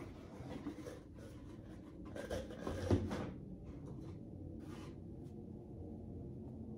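A gold-painted box being handled and its lid opened: several short rubbing and scraping sounds with a soft knock about three seconds in, then a felt cloth being drawn out.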